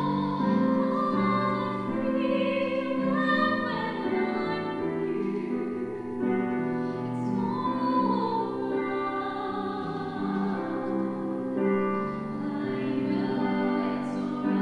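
Women singing a song into a microphone over an instrumental accompaniment, with long held notes.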